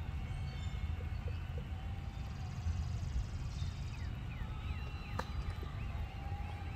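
A golf club strikes the ball once, a single sharp click about five seconds in, on a 42-yard pitch shot from the rough. Wind rumbles on the microphone, and birds chirp throughout.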